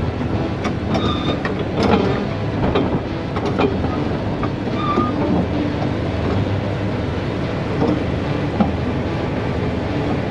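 Caterpillar D6 bulldozer's diesel engine running steadily as the machine crawls along on its steel tracks, with clanking and short squeaks from the track links.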